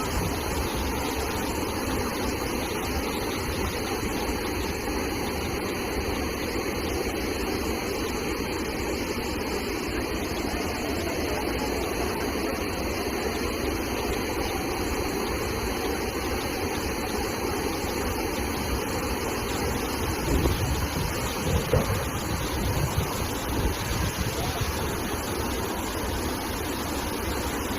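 Fast-flowing flash-flood water rushing steadily, with a few louder knocks about twenty seconds in.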